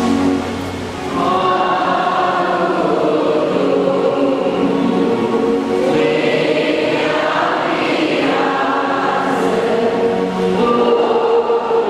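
A choir singing a slow hymn in long, held notes, with a brief lull about a second in.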